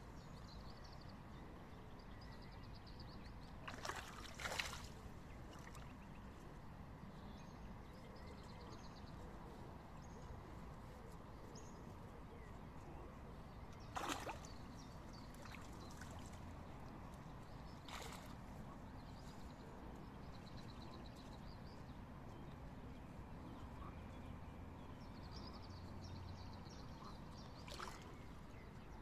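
Crucian carp splashing at the pond surface while spawning: about five short splashes, two close together about four seconds in, then singly spread through the rest, over a faint steady background hiss.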